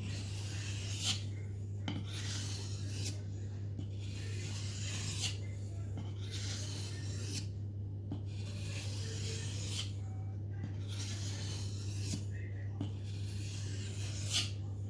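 Mora Bushcraft Black's carbon steel blade being honed on a wet whetstone: raspy scraping strokes of about a second each, roughly one every second and a half. A steady low hum runs underneath.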